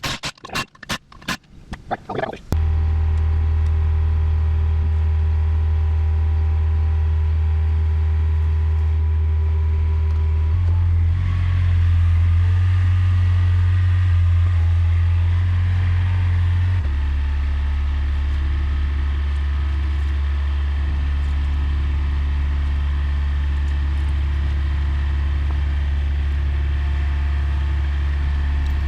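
A few sharp clicks and scrapes, then the Takeuchi TB145 mini excavator's diesel engine running steadily with a low hum. It comes up to a higher speed about ten seconds in and settles back down about seven seconds later.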